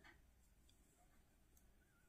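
Near silence, with a few faint ticks of metal knitting needles as stitches are slipped from one needle to the other.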